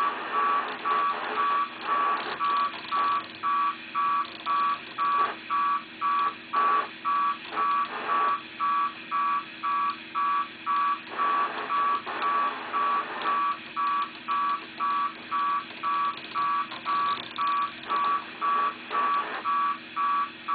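Odd signal received on the 2-metre amateur band and played through a radio: a beeping tone pulsing on and off about twice a second over steady background hiss, which the uploader suspects may be data.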